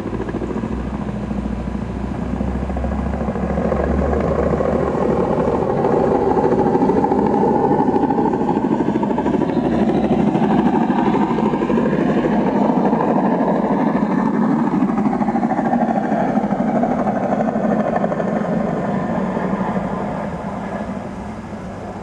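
Helicopter sound effect from the model carrier's electronic sound module: a steady rotor chop with turbine whine, swelling over the first few seconds and fading out near the end.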